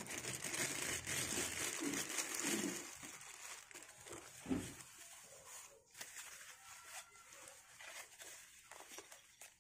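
Clear plastic bag crinkling and a soft white wrapping sheet rustling as a riflescope is unwrapped by hand. Busiest in the first few seconds, with one sharp crackle about four and a half seconds in, then softer, sparser rustling.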